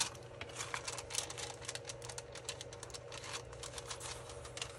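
Paper envelope and clear Mylar tag sheets being handled and turned over by hand: a faint, irregular run of small clicks and crinkles.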